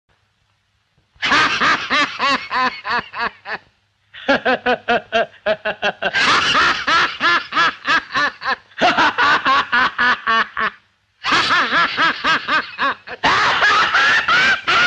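Rapid, high-pitched comic laughter in quick pulses, about five or six a second, coming in several bouts with brief breaks in between.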